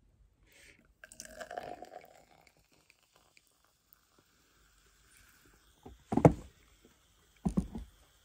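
Sparkling wine poured from the bottle into a tall glass, the liquid foaming up, followed by two loud thumps near the end.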